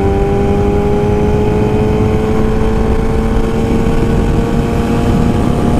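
Yamaha R6 inline-four sport bike engine with an aftermarket exhaust, pulling hard in one gear, its pitch climbing steadily as the bike accelerates, over steady wind rush.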